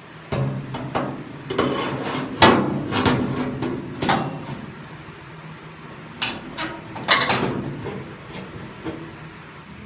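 Irregular metallic knocks and clangs on sheet steel, as when a car floor pan is hammered and fitted into place. Several come close together in the first four seconds, and two more about six and seven seconds in.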